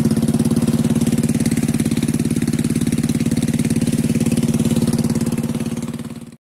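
Small boat engine running steadily under way, a fast even pulse with a strong low hum; it fades out and cuts off about six seconds in.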